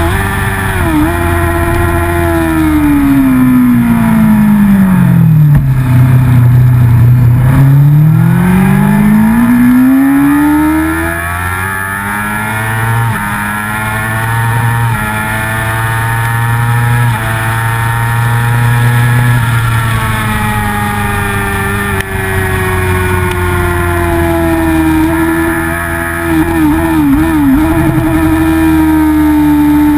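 Racing motorcycle engine heard from on board at speed, under a steady rush of wind. Its note sinks over several seconds as the revs drop, holds low briefly, then climbs back up. After that it shifts in a few steps and runs at a fairly steady high pitch.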